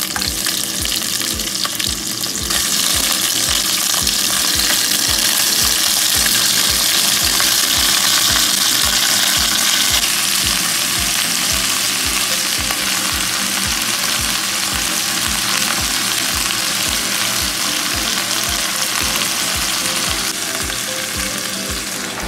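Goat meat sizzling in hot oil in an enamelled cast-iron pot with garlic, shallots and ginger, turned now and then with a spatula. The sizzle grows louder about two seconds in and eases slightly after about ten seconds.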